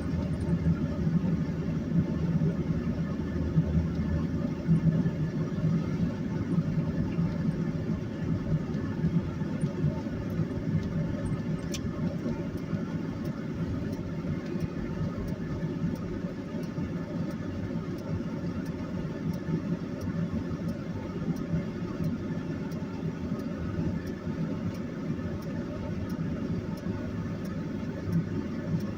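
Cab noise of a 2001 Chevy Silverado 1500 pickup driving slowly on a snow-covered highway: a steady low rumble of engine and tyres. A faint, evenly repeating tick comes in about halfway through.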